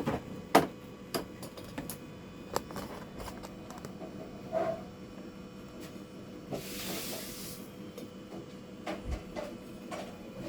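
Small clicks and knocks of handling at a workbench over a faint steady hum, with a brief hiss lasting about a second around seven seconds in.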